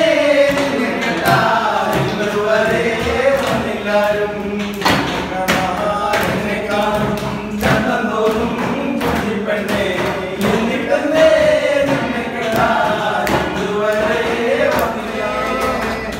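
A group of men singing a Malayalam song together, with hands slapping the tabletop in time.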